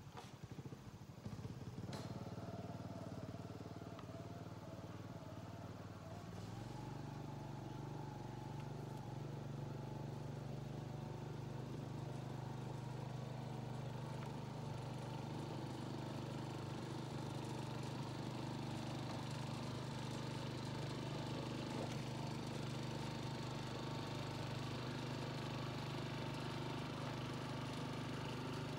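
A small engine running, uneven for the first few seconds, then settling into a steady, even run about six seconds in.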